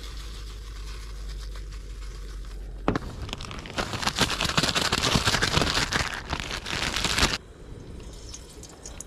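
Plastic zip-top bag crinkling as it is shaken and kneaded to coat marinated crappie fillets in Cajun seasoning breading; a dense, rapid crackling that starts about three seconds in and stops sharply a few seconds later.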